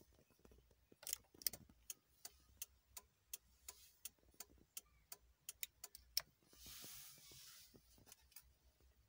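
Faint, irregular light clicks and taps of hands and a handheld camera against the plastic dashboard, coming closer together about six seconds in, followed by a short soft rustle.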